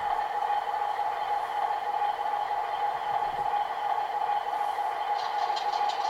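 Model diesel locomotive's sound decoder, playing a recorded diesel engine running steadily through the loco's small onboard speaker. About five seconds in, a rapid run of light ticks joins it, roughly seven a second.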